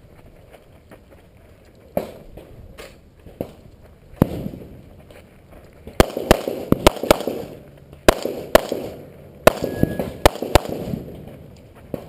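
A string of gunshots: a few single shots in the first four seconds, then rapid runs of shots from about six seconds in.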